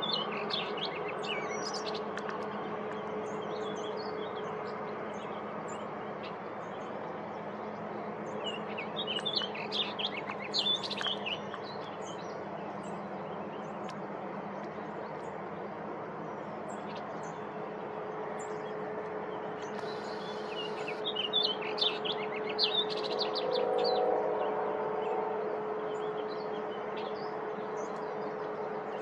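Male orchard oriole singing: three bursts of quick, clustered short notes, about ten seconds apart, over a steady low hum in the background.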